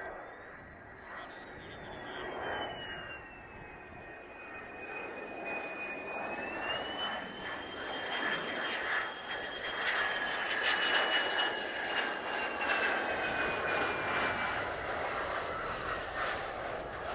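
Mitsubishi F-2 fighter's single F110 turbofan whining and growing louder as the jet draws nearer. The high whine dips in pitch, rises again about six seconds in, then slides down toward the end.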